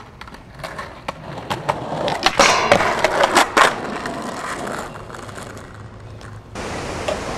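Skateboard clacking and scraping on pavement and rail, a run of sharp impacts about two to four seconds in, then wheels rolling on asphalt. The sound changes abruptly to a steadier hiss of rolling about six and a half seconds in.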